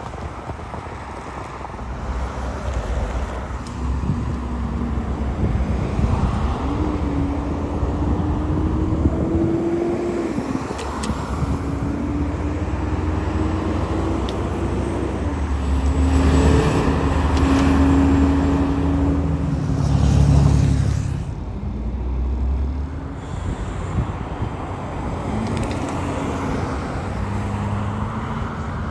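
A car being driven: engine and road noise with a steady low rumble, and a hum that rises and falls in pitch as the speed changes.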